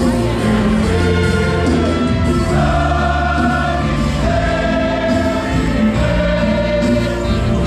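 Gospel music: a choir singing over instrumental accompaniment with steady low notes underneath.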